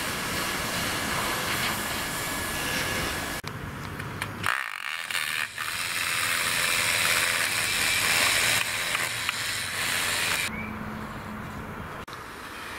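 Steady hiss of a hand-held hot-air welder seaming a PVC pool liner, then other building-site noise, with the sound changing abruptly several times.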